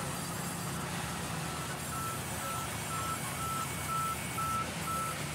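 Vertical band sawmill running as a log is fed through the blade, a steady machine noise with a low hum. From about a second and a half in, a short electronic beep repeats about twice a second over it.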